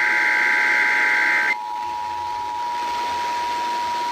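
Emergency Alert System two-tone attention signal sounding steadily over radio hiss. A SAME digital data burst screeches over it for about the first second and a half, then the tone carries on alone.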